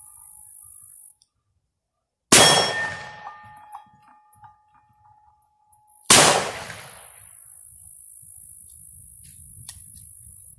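Two shots from a Smith & Wesson .38 Special revolver, about four seconds apart. After the first comes a metallic ring that lingers for a few seconds.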